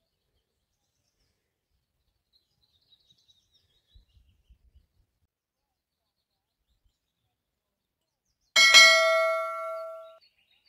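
A single loud metallic clang about eight and a half seconds in, ringing on several clear tones and dying away over about a second and a half, like a struck piece of metal. Before it there are only faint bird chirps.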